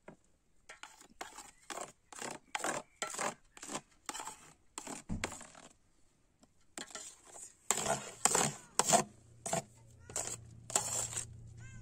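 A series of short scraping strokes, about two or three a second, in two runs with a pause of a second or so near the middle. A low steady hum joins in during the second half.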